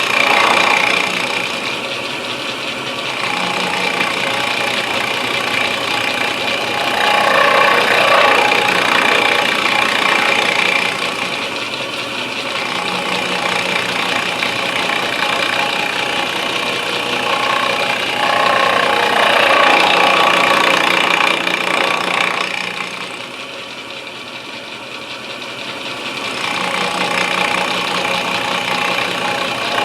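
Milling machine spindle running steadily with a round end mill cutting into an English walnut gunstock to open up the inletting. The cutting noise rises and falls several times as the bit is fed through the wood.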